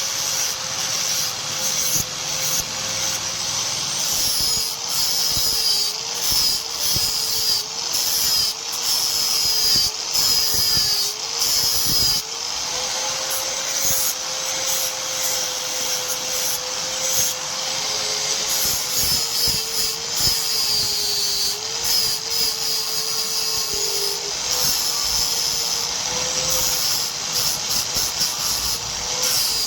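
Electric grinder working on the steel blade: a steady motor whine whose pitch dips again and again as it is pressed into the work, over a continuous high hissing grind.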